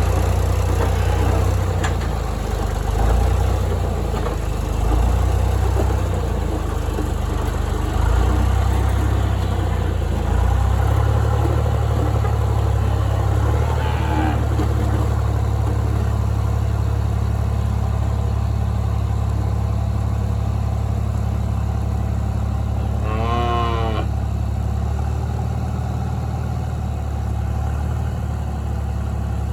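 A vehicle engine runs throughout, its note shifting in the first ten seconds and then holding steady. About two-thirds of the way through, a cow moos once, a rising and falling call lasting about a second.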